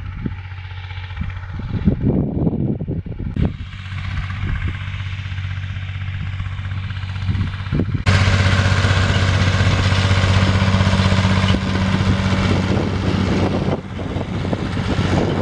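Ursus 2812 tractor's diesel engine running steadily under load while pulling a cultivator, with wind gusting on the microphone in the first few seconds. It turns suddenly louder about eight seconds in, with the tractor closer.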